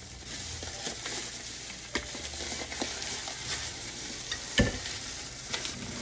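Disposable plastic gloves crinkling and rubbing over the skin of a raw duck in a glass bowl as it is seasoned: a steady crackly hiss with a few sharp clicks, and one hard thump about three-quarters of the way through.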